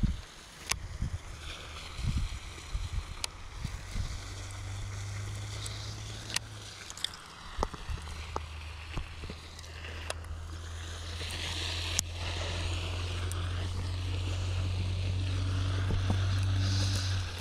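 Small boat under way on the water: a steady low hum that comes in a few seconds in, breaks briefly, then carries on, with scattered sharp knocks.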